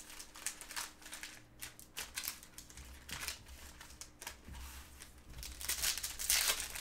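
Plastic trading-card pack wrappers crinkling as packs are handled and opened, in a string of short crackles that grow louder near the end.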